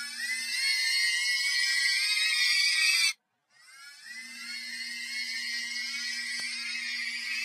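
Kids cheering sound effect pitched up an octave, many high voices overlapping. It cuts off abruptly about three seconds in and starts again half a second later, a little quieter.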